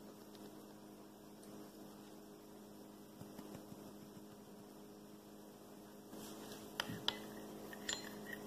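Steady low electrical hum, with a few light clinks of a metal spoon against a small glass bowl near the end as a sauce mix is stirred.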